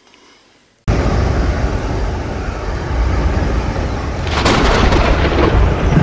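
Storm sound effect: a heavy, rumbling thunder-like noise cuts in suddenly about a second in and keeps going loud, with a sharper crash around the middle.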